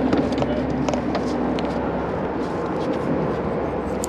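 Steady drone of vehicle traffic on the highway bridge overhead, with scattered faint clicks.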